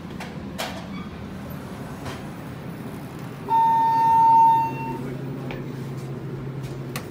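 ThyssenKrupp elevator hall lantern sounding one long, steady electronic chime as the up arrow lights, signalling that the car has arrived going up. A few light clicks come before it, and a low steady hum begins as the chime ends.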